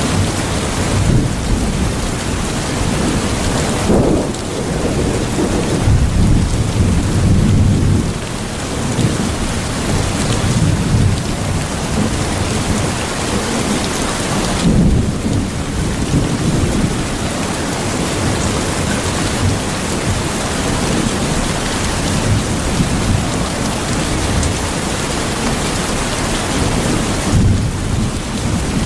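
Steady rain with low rolls of thunder swelling and fading about four times.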